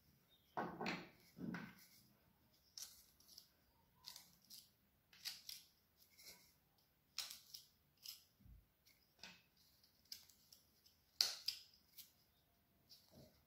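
Small hand carving gouge slicing short cuts into the wood of a branch: about a dozen brief, crisp scraping strokes at irregular intervals of a second or so, the loudest about eleven seconds in.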